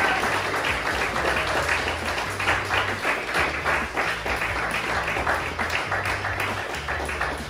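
Audience applauding: dense, continuous clapping that eases slightly near the end.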